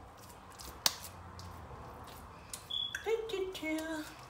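Soft, wet handling of a haddock patty mixture being shaped by hand, with one sharp click about a second in. About three seconds in a person starts humming a few notes.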